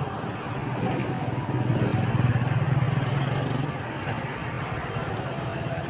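Low engine hum of street traffic, swelling for about two seconds in the middle as a motor vehicle passes close by.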